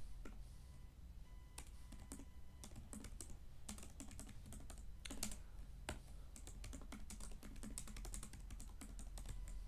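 Typing on a computer keyboard: a quick, uneven run of key clicks that starts about a second and a half in.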